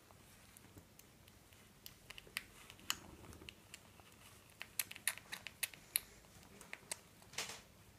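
Baby squirrel suckling milk from a small feeding syringe: faint, quick wet clicks and smacks, scattered at first and coming thick in the second half, with a brief rustle near the end.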